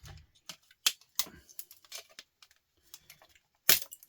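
Irregular sharp clicks and snaps of hand tools and small parts being worked while pulling copper off a record player's circuit board, the loudest about three and a half seconds in.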